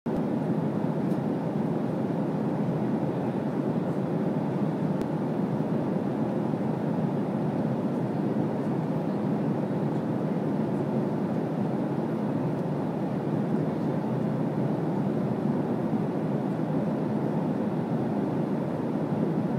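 Steady cabin noise of a jet airliner in cruise: the even, deep rush of airflow and engines heard inside the passenger cabin.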